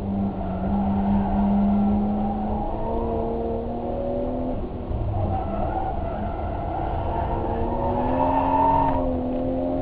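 A vehicle engine accelerating under load, its pitch climbing slowly. It drops back once about halfway through and again near the end, like gear changes, then climbs again.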